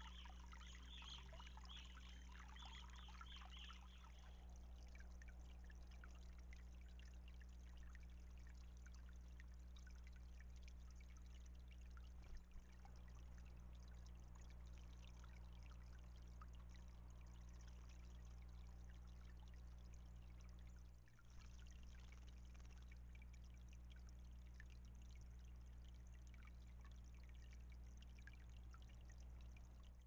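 Faint water trickling over the stones of a backyard bird-bath water feature, a little louder in the first few seconds, over a steady low hum.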